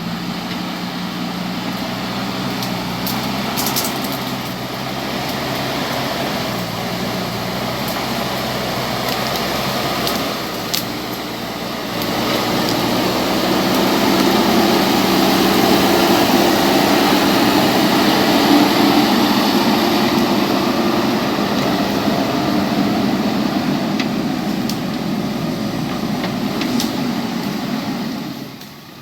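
JCB backhoe loader's diesel engine running, working harder and louder from about halfway through, then dropping back near the end. A few short sharp clicks sound over it.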